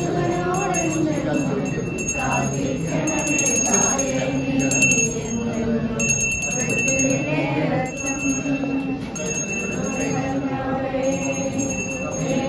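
A hand bell shaken rapidly in bouts of a second or two, ringing over the voices of a crowd.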